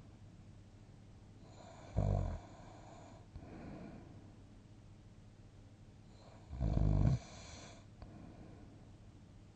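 A sleeping person snoring: two loud, low snores, about two seconds in and again at six and a half seconds, with softer airy breathing between them.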